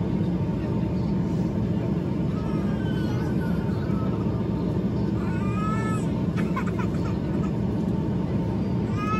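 Steady cabin rumble of an Airbus A320-family airliner on approach: engine and airflow noise with a faint steady whine. A few short, high-pitched voice-like calls rise and fall over it, about two and a half, five and nine seconds in.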